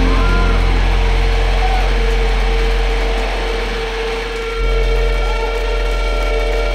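Electric guitar and bass amplifiers droning with feedback, no drums: held tones with a few slow pitch bends over a loud low hum. The low end dips and comes back about four and a half seconds in.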